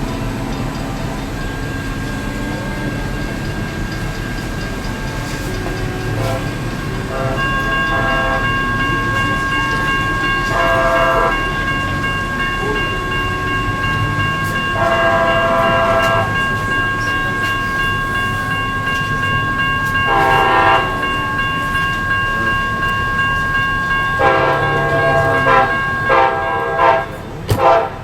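Amtrak passenger locomotive horn sounding a series of about six blasts as the train approaches, the last two close together near the end, over the steady rumble of the oncoming train.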